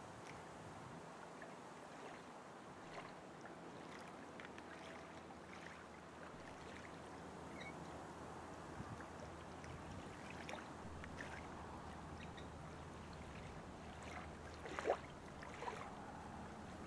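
Faint lakeside ambience: a steady hiss of moving water and air, with scattered small clicks and knocks and a louder knock about fifteen seconds in.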